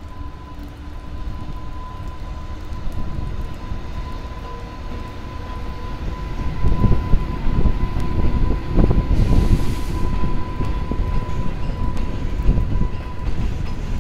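EH500 electric freight locomotive pulling away and passing close, followed by loaded container wagons rolling by. A low rumble grows louder about halfway through as the locomotive draws level, over a steady high tone, with strong wind buffeting the microphone.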